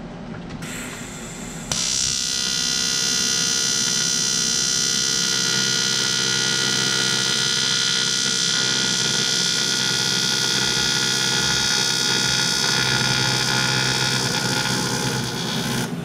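AC TIG welding arc from an Eastwood TIG 200 on aluminium: a loud, steady electric buzz with a high hiss. It comes in faintly, jumps up sharply about two seconds in, and cuts off just before the end.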